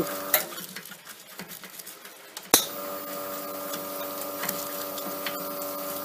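A stiff-bristled brush scrubbing inside an espresso machine's group head, its bristles scratching against the metal to clear out ground coffee. A steady hum under it stops with a click just after the start and comes back with a sharp click about two and a half seconds in.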